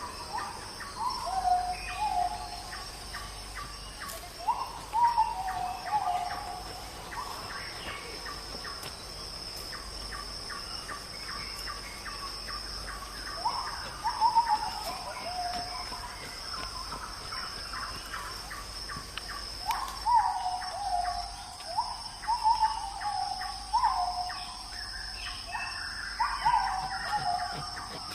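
Animal calls: short down-slurred notes given in bursts of several, coming back every few seconds, over a steady high-pitched insect drone and faint ticking.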